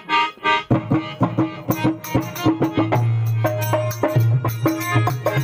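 Harmonium playing a devotional folk tune, joined less than a second in by a hand drum and percussion keeping a steady rhythm.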